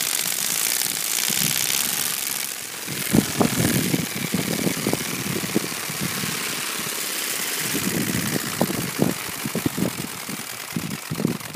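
Playing cards taped to a BMX bike flapping against the spinning spokes as it is pedalled over gravel: a rapid, steady clatter that sounds like a motorcycle engine. Louder low rumbles come through around three seconds in and again near nine seconds.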